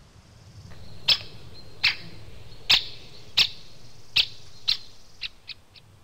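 Red deer stag roaring in the rut: a bout of about nine calls over a low rumble, the last few coming faster and shorter.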